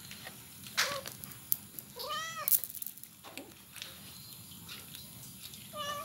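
A cat meowing twice: one arching meow, rising then falling, about two seconds in, and a shorter one near the end, with a few sharp clicks in between.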